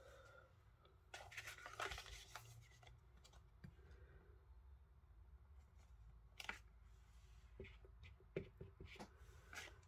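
Faint handling of a clear acrylic stamp block and ink pad on a craft mat: a rustle of paper about a second in, then a few light taps and clicks later on.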